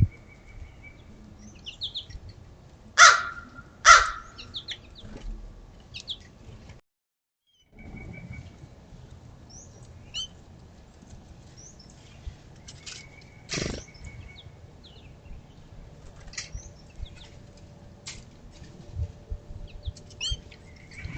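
Small songbirds at a feeder: scattered short high chirps and calls, with loud wing flutters as birds come and go, two close together early and one about two-thirds of the way in. A brief silent gap falls about a third of the way in.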